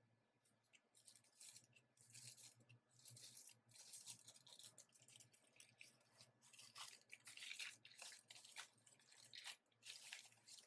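Faint, irregular rustling and scraping of packaging being handled and pulled open, in many short strokes.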